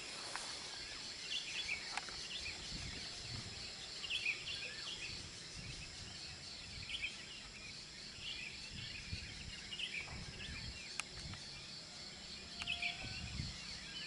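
Songbirds chirping in short phrases every second or two over a steady, high-pitched insect chorus.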